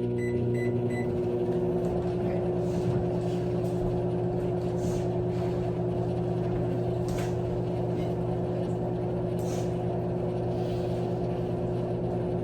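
Microwave oven running with a steady, even hum, the popcorn not yet popping.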